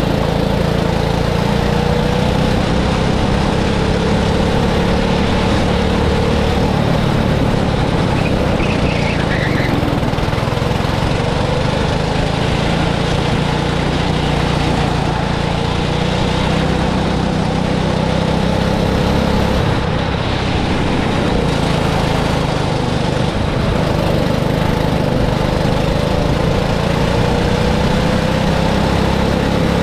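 Go-kart engine running steadily and loudly, its pitch slowly rising and falling as the kart speeds up and slows.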